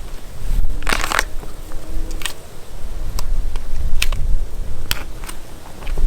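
Handling noise from the MCX rifle during reload drills: a rustling clatter about a second in, then several separate sharp clicks, over a low wind rumble.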